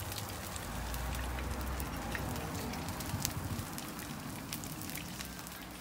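Seafood pajeon frying in oil in a pan, giving a steady sizzle with scattered small crackles and pops.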